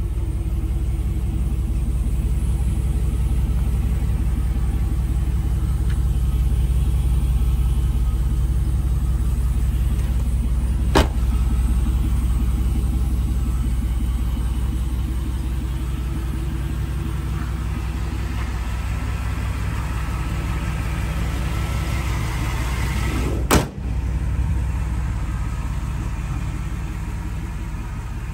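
1996 Chevrolet 1500 Silverado pickup's engine idling steadily with a low, even rumble through its upgraded exhaust. Two brief sharp knocks, about twelve seconds apart.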